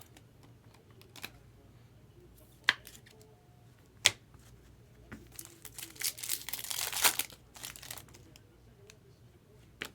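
Two sharp clicks, then the foil wrapper of a Bowman Sapphire trading-card pack crinkling and tearing for about two seconds as the pack is opened.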